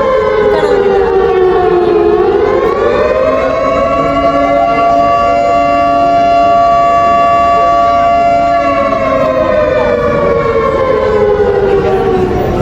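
A siren wailing loudly: its pitch falls, rises again about two seconds in, holds steady for several seconds, then slowly falls away and stops near the end.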